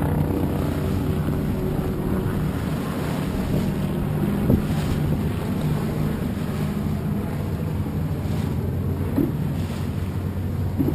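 A motorboat's engine running steadily, with wind blowing on the microphone and choppy water washing past the hull.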